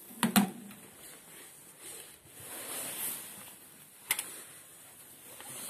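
Sharp clicks and knocks with light rustling: a pair of clicks just after the start, a soft rustle in the middle, and one sharp click about four seconds in.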